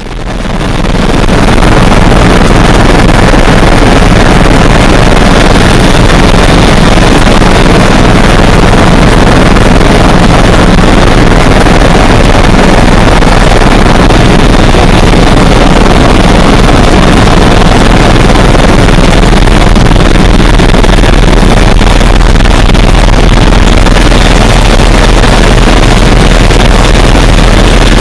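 Helicopter noise picked up by an overloaded, clipping microphone: a steady, harsh, distorted noise with a heavy deep rumble, fading in over the first second or so.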